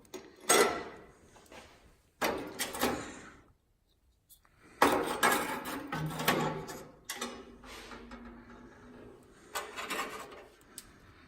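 Loose sheet-metal patch panels being handled, shifted and set down, in four bouts of clattering and scraping.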